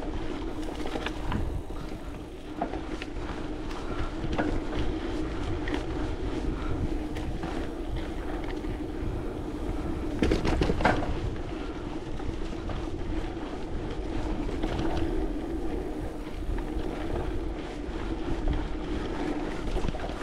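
Wind rumbling on the microphone, with a steady low hum underneath and a short cluster of clicks about ten seconds in.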